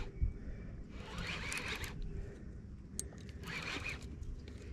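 Fishing reel ratcheting in two short buzzing bursts while a striped bass is on the line, once about a second in and again past three seconds.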